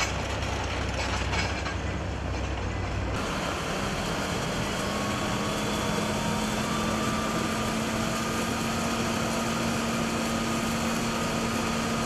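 A deep engine rumble that changes abruptly about three seconds in to a fire engine's pump running steadily, a constant hum over the hiss of a high-pressure water jet spraying from the truck's roof.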